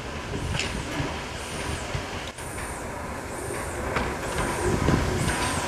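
GNR N2 0-6-2T steam tank locomotive No. 1744 moving slowly off, with steam hissing and a regular beat about once a second.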